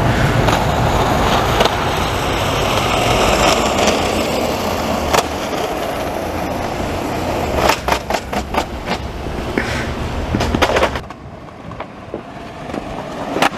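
Skateboard wheels rolling fast on pavement with a steady rumble, broken by a run of sharp clattering knocks about eight seconds in and more around ten seconds, after which the rumble stops and it goes quieter.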